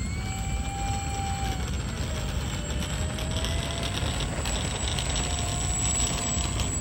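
Electric motors and propellers of a four-engine RC B-24 Liberator foam model in flight, a thin whine that dips slightly in pitch and comes back up, over a steady low rumble of wind on the microphone.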